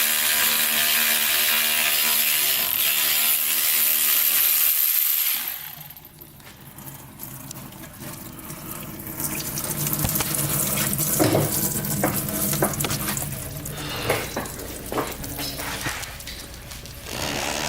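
Garage tool work: a loud steady hiss with a hum runs for about five seconds and cuts off sharply, then come quieter scattered clicks and clanks of tools on metal.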